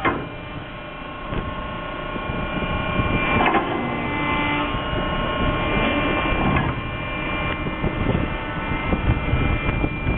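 Steady machinery drone of a ship, several fixed tones over a rushing noise of wind and sea, with two brief louder noises about a third and two-thirds of the way through.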